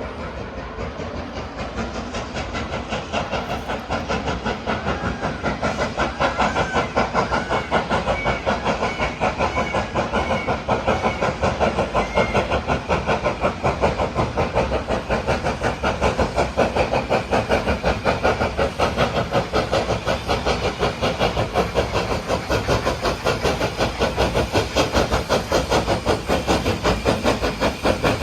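Standard-gauge steam locomotive working hard up a steep 1-in-13 incline, its exhaust beating in a fast, even rhythm with a hiss of steam. The beats grow louder over the first several seconds as it approaches, then hold steady.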